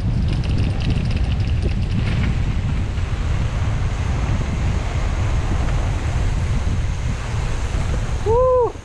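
Wind buffeting the microphone of a camera on a mountain bike riding along a path, a steady low rumble. Near the end comes a short squeal that rises and falls in pitch.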